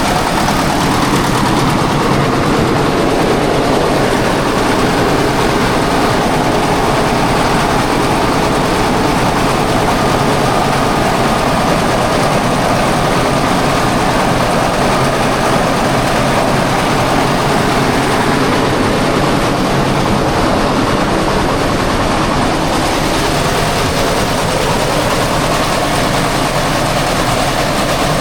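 Engine-driven grain mill running steadily under load, a loud, continuous mechanical noise that does not change.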